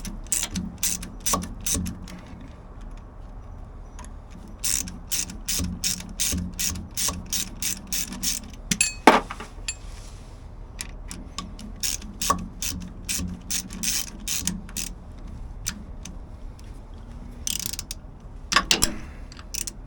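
Hand ratchet wrench clicking in several runs of quick strokes as a fastener is tightened down, with pauses between runs and a single louder knock about nine seconds in.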